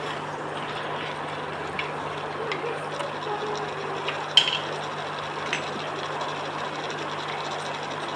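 Chicken pieces frying in a stainless steel pan of onion-tomato masala: a steady sizzle, with a few light clicks and one sharp knock about four seconds in.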